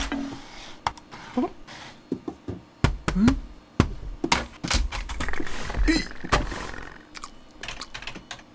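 Cartoon sound effects: a string of irregular knocks, taps and thuds, with a few short vocal squeaks.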